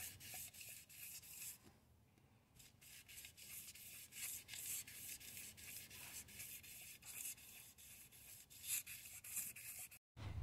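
Faint rasping strokes of a 1000-grit abrasive strip pulled back and forth around a Ford 351 Windsor crankshaft main journal to polish it by hand, about four strokes a second, with a short pause about two seconds in.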